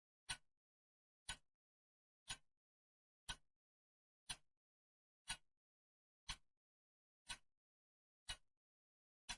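Clock ticking steadily, one sharp tick a second, each tick followed by a faint after-click.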